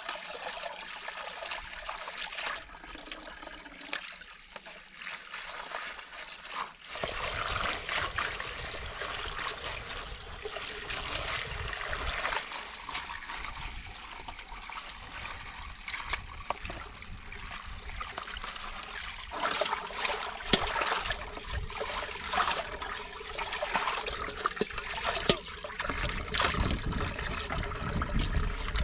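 Spring water running from a pipe and splashing into a shallow pool, with hands rinsing cut potatoes in a plastic basket under the stream. It gets louder about seven seconds in.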